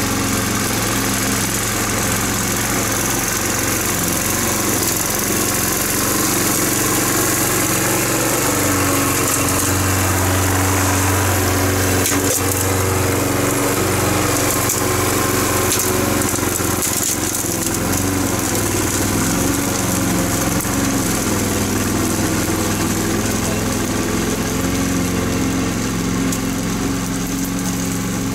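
Small gasoline engine of a walk-behind Toro lawn mower running steadily at full throttle as it is pushed over the lawn, louder as it passes close by about a third of the way in.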